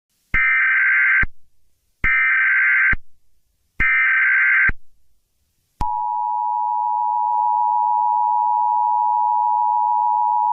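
Emergency Alert System alert sounds: three short, harsh data bursts of the SAME header, evenly spaced. About halfway through they give way to the steady two-tone EAS attention signal, which holds to the end.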